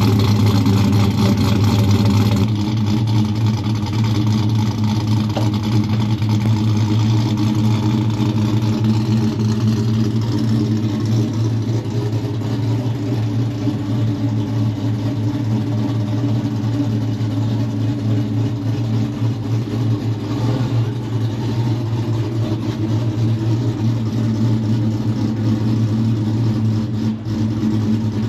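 Chevrolet Silverado pickup's engine running steadily at low revs, a low, even drone that holds the same pitch throughout.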